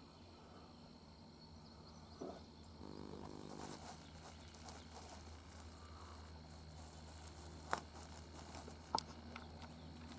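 A low buzzing drone, about a second long, about three seconds in, over quiet outdoor ambience; near the end come two sharp clicks.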